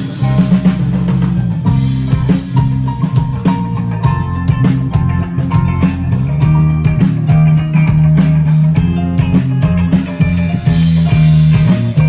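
Live band playing through a stage PA: a drum kit keeps a steady beat under guitar, bass and keyboard.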